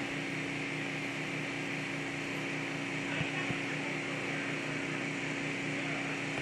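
Steady low mechanical hum, like a small engine running, with a regular pulsing beat, under a constant even hiss.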